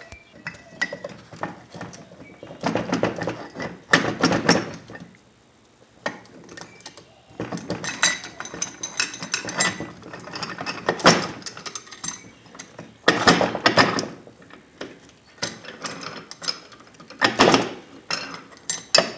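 Metal bench vise being worked by hand: its screw and metal parts clicking and clanking in irregular bursts.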